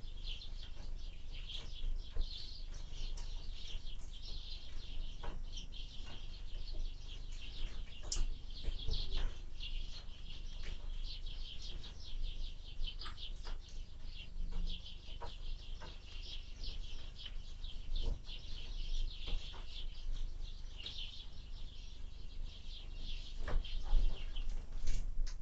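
Small birds chirping and twittering continuously at a window feeder, with many small sharp taps and a few louder knocks near the end. A steady low wind rumble runs underneath.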